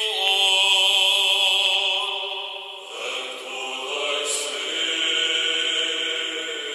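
Orthodox liturgical chant sung in long held notes, the melody shifting to new notes about three seconds in.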